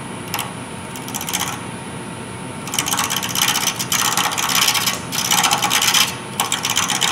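A wood lathe running, with a hand-held turning tool cutting the spinning wood spindle: two short scrapes at first, then long rough scraping cuts from a little under halfway through, with a short pause near the end.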